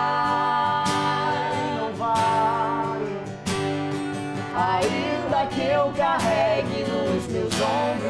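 A man sings a gospel song with long held, wavering notes, accompanying himself on a strummed acoustic guitar, one chord strum about every second and a quarter.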